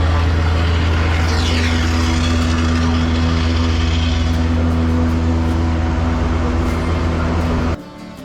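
A car engine running steadily at constant speed, loud and low, cutting off suddenly near the end. A faint falling whine comes through about a second in.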